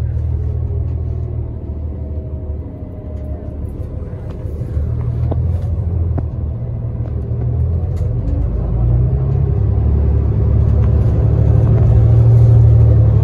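Cabin noise inside a 2018 New Flyer XDE60 diesel-electric hybrid articulated bus under way: a steady low rumble of drivetrain and road, with a few sharp rattles and clicks. It grows louder through the second half.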